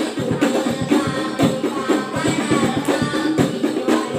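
A boy sings into a microphone over rebana frame drums played by a group in a quick, steady interlocking beat.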